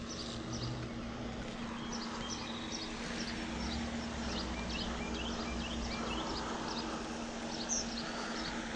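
Small birds chirping repeatedly, short high calls scattered throughout, over a steady outdoor background with a faint low hum.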